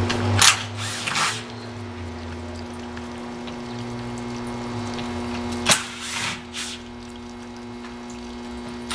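A steady mechanical hum with a few short, sharp noisy bursts, one of them loudest about six seconds in.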